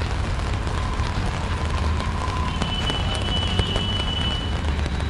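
Steady rain falling on a busy city street, with a constant low rumble beneath it. A thin high tone sounds for about two seconds in the middle.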